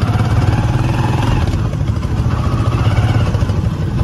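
Motorcycle engine running steadily at low speed, a low throb with fast, even pulsing.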